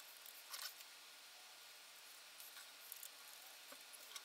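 Near silence with a few faint, light metallic clicks as the clutch bolts are spun out with a T-handle hex wrench.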